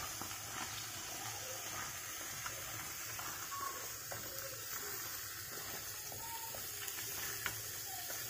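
Meat, chopped onion and chickpeas frying in a clay tagine with a steady, quiet sizzle, with a few light knocks of a wooden spoon as they are stirred.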